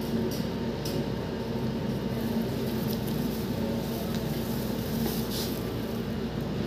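Steady hum of kitchen machinery running, with a few faint, brief rustles over it.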